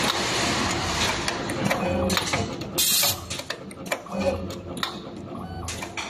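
Multicore wire stripping and cutting machine running through its cycle, repeating about every two seconds: motor whir from the feed rollers, clicks from the stripping and cutting head, and short hisses of air from the pneumatic cylinders about three seconds in and again near the end.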